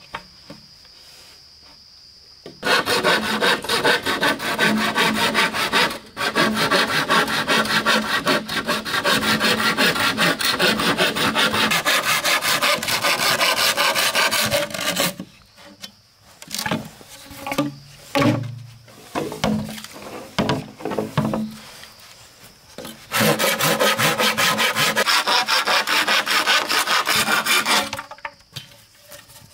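Bamboo being cut with a hand saw: a long spell of continuous sawing, then a few seconds of scattered knocks and short rubs, then a second spell of sawing of about five seconds.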